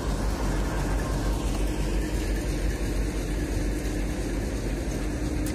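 TEP70BS diesel passenger locomotive idling at a standstill: a steady low engine rumble with a faint steady hum, no horn.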